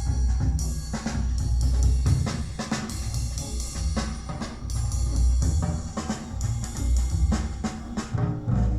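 Music with a drum kit and heavy bass playing through Bowers & Wilkins 683 S2 floorstanding speakers driven by a Marantz PM7000N amplifier.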